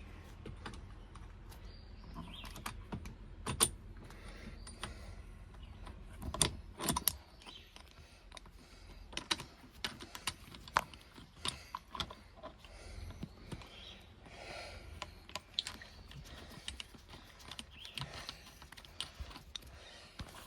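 Irregular metallic clicks, clinks and knocks of hand tools and bolts being handled while a steering wheel puller is fitted to the steering wheel hub. The sharpest knocks come a few seconds in and around six to seven seconds.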